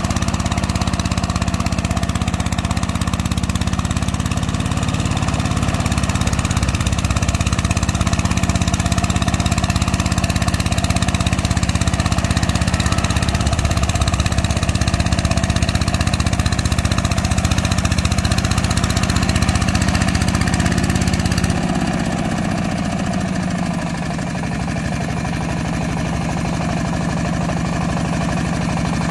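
Hand tractor's single-cylinder diesel engine running steadily as it pulls steel mud wheels through a flooded paddy. About twenty seconds in, its note drops lower and a little quieter.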